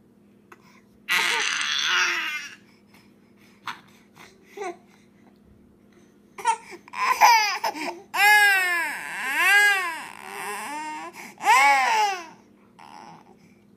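Infant crying: a short breathy squeal about a second in, then, after a lull, a string of loud wails that rise and fall in pitch, each under a second long, from about six and a half seconds until near the end.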